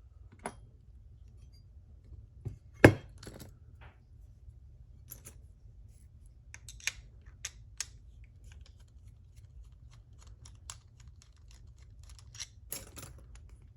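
Scattered small metal clicks and taps of lock-picking tools working a Mul-T-Lock MT5 padlock core as the picked lock is being taken apart, with one sharp, loud click about three seconds in and a short cluster of clicks near the end. A steady low hum runs underneath.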